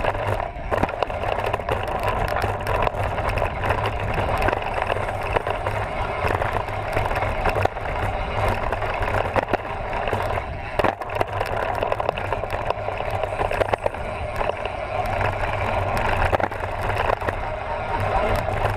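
Mountain bike riding fast over a dirt and gravel trail, heard close up from the bike: steady tyre rolling noise with a constant rattle of small knocks and clicks, and wind rumbling on the microphone.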